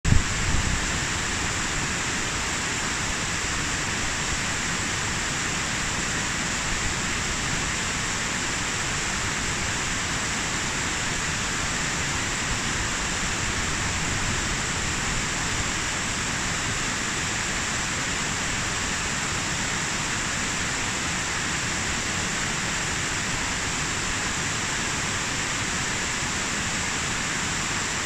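Mountain stream cascading over boulders: a steady, even rush of water. A brief low thump comes at the very start.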